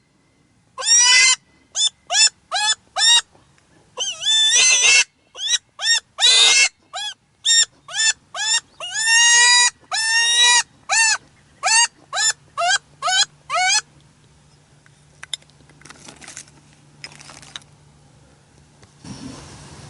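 Primos Double Cottontail predator call blown by mouth, giving a cottontail rabbit distress cry to lure coyotes: a run of loud, high wavering squeals, some short and some drawn out, that stops about fourteen seconds in.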